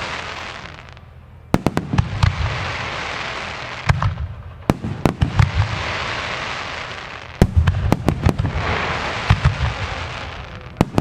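Fireworks display: aerial shells and salutes going off in volleys of sharp bangs every two to three seconds, each volley followed by a hissing wash that fades out.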